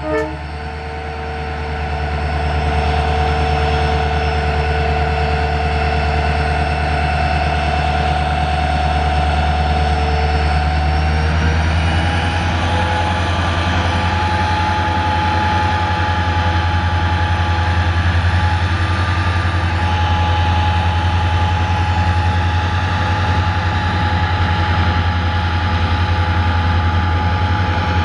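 Diesel locomotive engine running with a steady deep hum; about twelve seconds in its note steps up and the hum grows stronger, as when the throttle is notched up.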